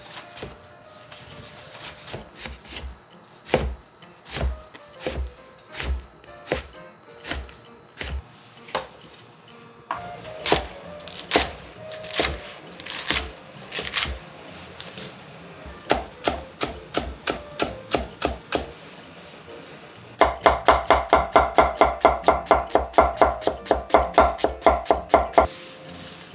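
Kitchen knife chopping on a cutting board: separate cuts at first, then a fast steady run of about five chops a second near the end.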